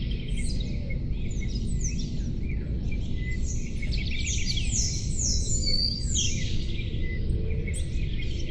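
Several songbirds singing and calling over one another: quick chirps, trills and clear whistles that slide downward, thickest about halfway through. Beneath them runs a steady low rumble of background noise.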